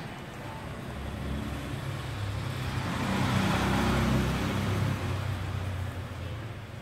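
A motor vehicle passing by: engine and road noise that builds from about a second in, peaks around three to four seconds, then fades away.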